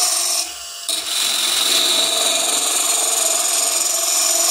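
Half-inch spindle gouge cutting into the end grain of a workpiece spinning on a wood lathe, a steady scraping, shearing noise of wood shavings coming off. The cut breaks off briefly about half a second in as the tool is drawn out, then starts again.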